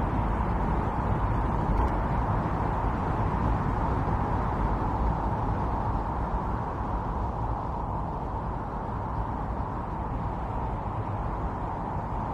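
Strong winter storm wind blowing steadily, a dense rushing noise that eases a little about halfway through.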